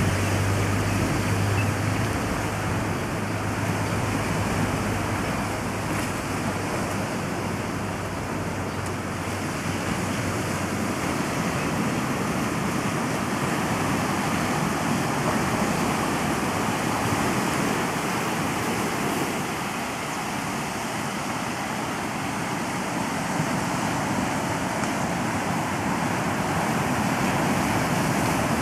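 Ocean surf breaking and washing against a rocky shoreline: a steady rush of water noise that swells and eases slowly.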